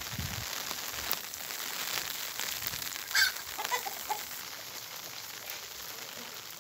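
Steady hiss of rain falling on the ground and vegetation. About three seconds in a bird calls loudly once, followed by a few softer notes.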